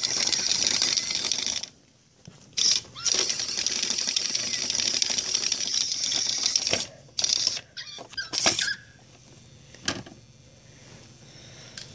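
Little Live Pets battery-powered toy mouse's small motor whirring and rattling as it runs in its plastic wheel. It cuts out about two seconds in, runs again for about four seconds, then only starts and stops in short spurts, the sign of the toy getting stuck.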